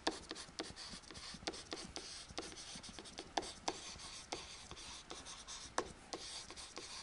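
Stylus writing by hand on a tablet: faint scratching strokes with frequent small taps as the pen tip lifts and lands between letters.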